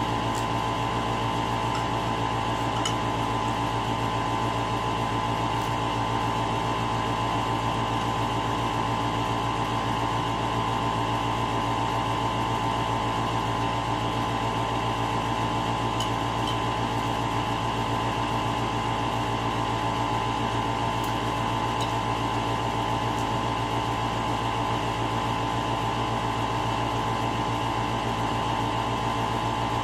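Steady mechanical hum with a strong even tone, unchanging throughout, with a few faint clicks of a spoon against a bowl.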